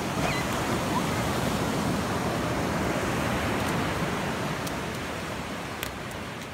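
Ocean surf washing up the beach, a steady rush of foam running over wet sand that eases off over the last couple of seconds.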